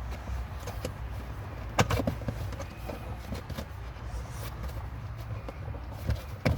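Plastic interior trim and its clips being worked loose with a trim pull tool: a few sharp clicks and knocks, the strongest about two seconds in and near the end, over a low steady hum.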